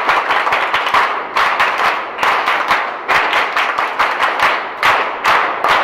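A group of people clapping, many sharp claps in quick, uneven succession.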